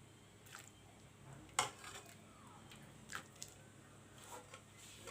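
Cooked moong dal being spooned out to serve: a few faint, soft wet plops and light spoon taps, the clearest about one and a half seconds in.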